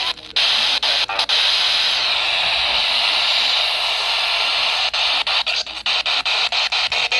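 Loud steady radio static hiss from a receiver whose broadcast signal has broken up, drowning out the voice reading the warning. From about five seconds in, the hiss breaks into rapid crackling dropouts.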